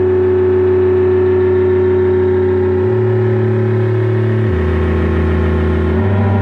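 Sustained synthesizer drone played live: a steady held tone over deep bass notes that step to a new pitch about three times, with no drums.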